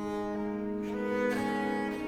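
Bass viol (viola da gamba) playing an embellished divisions line over long-held chamber organ chords; the viol's notes change about a second in.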